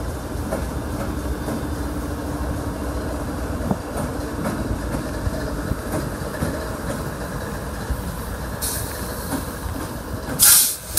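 Diesel freight locomotives passing close by, their engines giving a steady low rumble with scattered clicks from the wheels over the track. Near the end come short bursts of loud hiss; the loudest is about ten seconds in.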